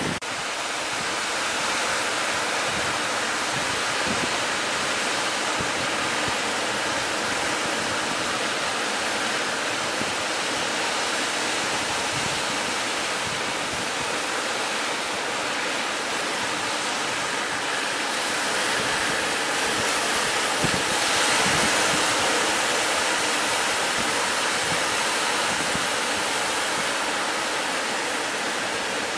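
Steady rushing of sea surf breaking and washing ashore, swelling a little louder about two-thirds of the way through.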